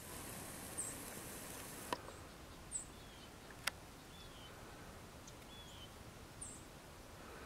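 Faint outdoor quiet with small birds calling: short high chirps and brief falling notes every second or so. A high hiss stops with a sharp click about two seconds in, and another sharp click comes near four seconds.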